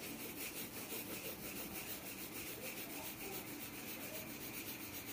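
Pencil lead scratching on paper as it is driven round and round in quick continuous loops, drawing a tight spiral: a steady, rhythmically pulsing scratching.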